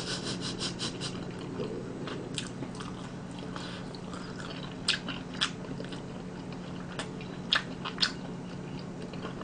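A person chewing a mouthful of food close to the microphone: a quick run of wet mouth clicks at the start, then single clicks every second or so, over a faint steady hum.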